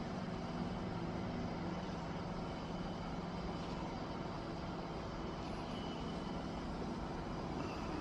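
Crane engine running steadily with a low, even hum.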